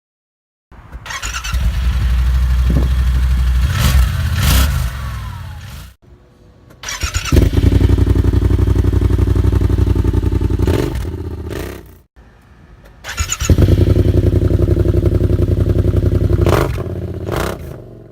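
Yamaha Wolverine X4 side-by-side's engine and exhaust revving, heard in three separate runs of about five seconds each. Each run builds up and then dies away, with short breaks between them.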